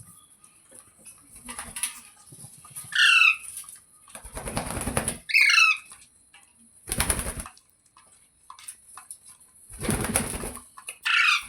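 Pet parrot giving three short, harsh squawks, each stepping down in pitch. Between them come three loud bursts of wing flapping, each about half a second to a second long.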